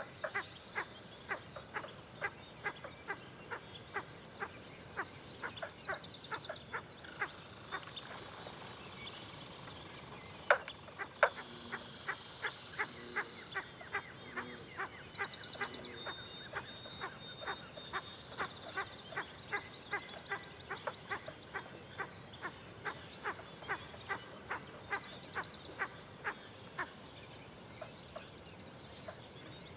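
Short, duck-like clucking calls repeating about two to three times a second, with high trilling birdsong over them that is densest from about 7 to 14 seconds in.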